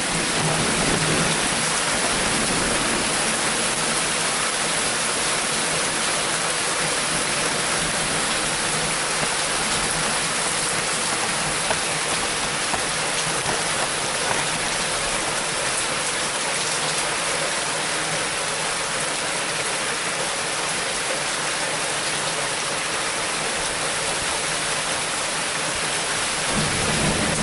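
Heavy, steady rain pouring down during a severe thunderstorm.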